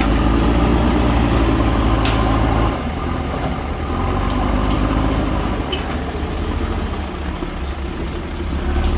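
Heavy diesel machinery engine running. Its steady low drone drops in level about three seconds in, and a few sharp knocks sound over it.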